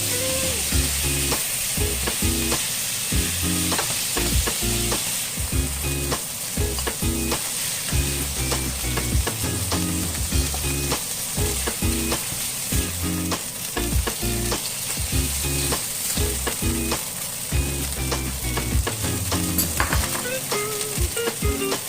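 Food sizzling as it fries in hot oil in a pan, with frequent clicks of a utensil stirring against the pan.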